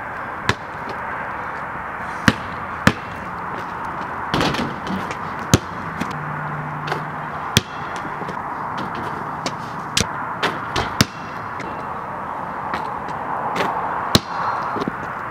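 A basketball knocking sharply at irregular intervals as it bounces on a concrete driveway and hits the hoop's backboard and rim, about a dozen impacts over a steady hiss.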